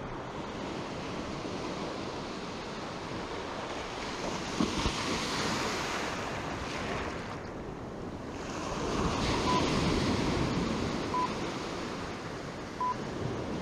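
Ocean surf washing up a sandy beach, rising and falling twice as waves run in, with wind on the microphone.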